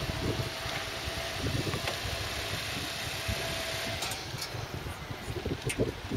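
Lamborghini Gallardo Super Trofeo Stradale's V10 engine running steadily at low revs as the car creeps forward at walking pace, with no revving.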